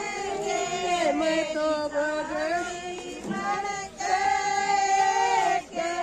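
Women singing a traditional Haryanvi wedding folk song together, in long, held, wavering notes, with short breaks about four seconds in and near the end.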